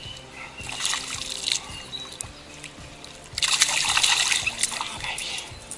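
A hooked bass thrashing and splashing at the surface as it is brought to the boat: a short bout of splashing about half a second in, then a louder, longer flurry of splashes about three and a half seconds in.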